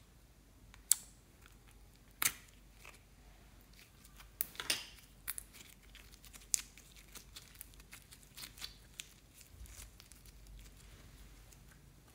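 Slime and a soft squishy toy being pulled apart and stretched by hand: sharp clicks and crackly tearing sounds, a few loud ones in the first half, then smaller pops and ticks.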